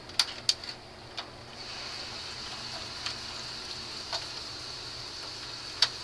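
Sharp clicks and taps of plastic as the Xbox 360's plastic casing is pried open with a small screwdriver, a handful of separate clicks spread out. A steady hiss comes in under them about a second and a half in.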